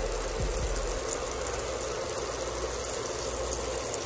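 Funnel cake batter sizzling steadily as it fries in a shallow pan of hot oil.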